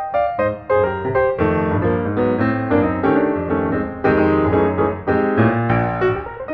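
Background music: piano playing a lively run of notes over a steady bass line.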